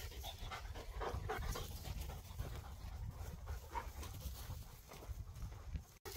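A hunting dog panting close by in quick, repeated breaths, over a steady low rumble.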